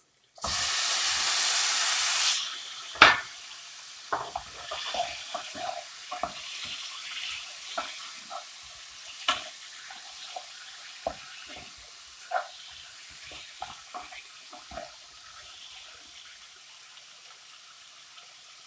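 Raw chicken pieces going into hot coconut oil and fried spice masala in a pan, sizzling loudly for about two seconds, then a spoon knocking and scraping in the pan as it is stirred over a softer, steady sizzle.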